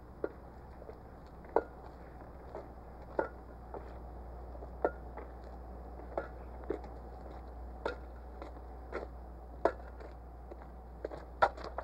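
Footsteps of two people walking on a wet dirt road: a string of short, uneven steps, some sharper than others and coming closer together near the end, over a steady low hum.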